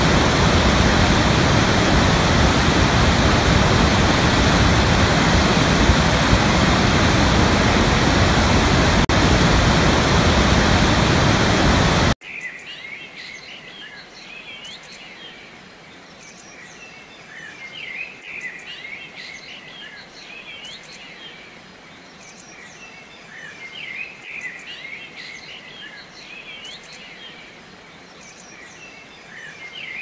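Waterfall rushing, a loud steady noise of falling water that cuts off abruptly about twelve seconds in. Birdsong then takes over, much quieter: many small birds chirping and singing over a faint hiss.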